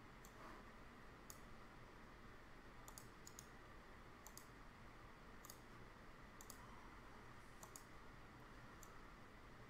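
Faint computer mouse clicks, a dozen or so spaced about a second apart, several in quick pairs, over a low steady hum.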